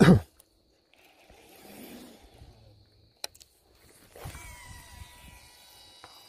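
Hands handling fishing gear close to the microphone: a loud brief rub at the start, a single click about three seconds in, then faint scratchy rustling with a thin whirring from about four seconds.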